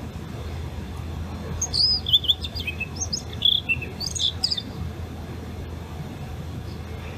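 Blue rock thrush singing one short warbling phrase of varied whistled notes, starting about one and a half seconds in and lasting about three seconds. A steady low hum runs underneath.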